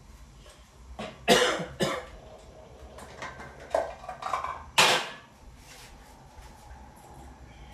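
A man coughing in short bursts, a cluster of coughs about a second in and another loud one just before five seconds in.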